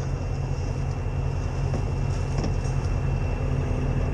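Heavy tow truck's diesel engine running steadily, a deep even rumble with a faint steady high whine above it.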